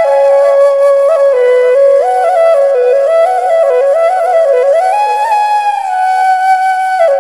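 Background flute music: a single melody line moving in small steps, with a long held note near the start and another in the last couple of seconds.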